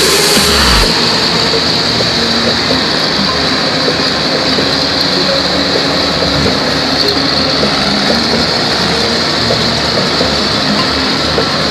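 Crawler tractor with a rotary tiller working a flooded rice paddy: its engine runs steadily under load, with a busy clatter of tracks and tiller and a steady high-pitched hiss over the top.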